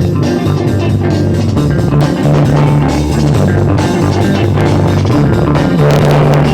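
Instrumental funk-rock music with bass guitar, electric guitar and a drum kit keeping a steady beat.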